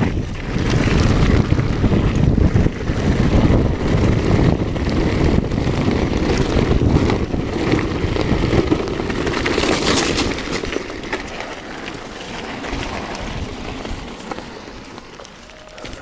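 Wind rushing over the camera microphone with the rumble and rattle of a YT mountain bike's tyres and frame on a rough rocky descent at speed. The noise eases off from about eleven seconds in as the bike slows, and a knock comes near the end as the bike tips over.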